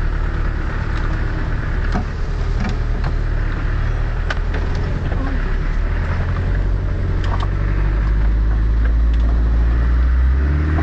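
Off-road 4x4's engine running at low speed, heard from inside the cabin, with scattered knocks and rattles from the vehicle over rough ground. The engine gets louder about eight seconds in.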